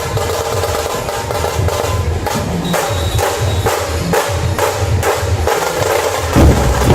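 Puneri dhol-tasha ensemble playing: big barrel dhols beating a steady rhythm with quick, sharp tasha strokes over them, louder and heavier about six seconds in.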